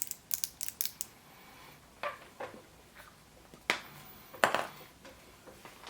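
Small hard plastic pieces being handled: a quick run of sharp clicks in the first second, then a few separate short knocks and rustles. This fits a Kinder Surprise egg's plastic capsule and toy parts being snapped and fiddled with.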